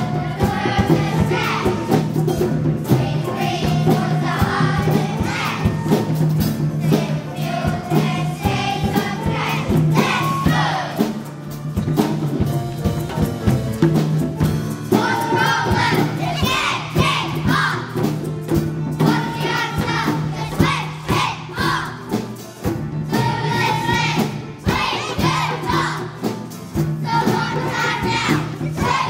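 A group of young children singing a song together in unison over a recorded backing track, phrase by phrase with short breaks between lines.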